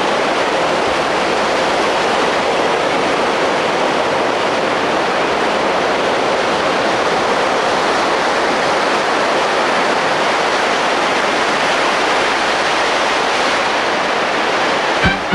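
Steady loud rushing noise of wind and water on a ship under way at sea.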